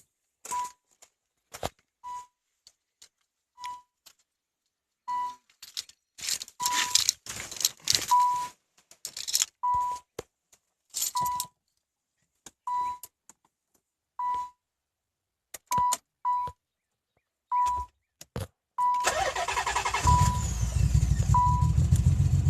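A car's warning chime beeps about every second and a half over keys jangling and rustling. About 19 s in, the 1992 Nissan 300ZX's naturally aspirated 3.0 L V6 cranks, catches and settles into a pulsing idle with the misfire that the owner is showing.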